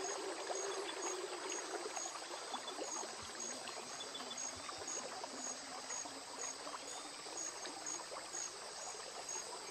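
River water gently trickling and lapping as an anaconda swims through it. A faint high chirp repeats steadily about one and a half times a second.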